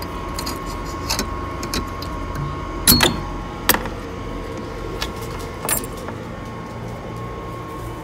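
A padlock and the metal latch of a wooden door clanking and rattling as they are unlocked and the door is opened, in a few sharp clicks and knocks, loudest about three seconds in. A steady hum runs underneath.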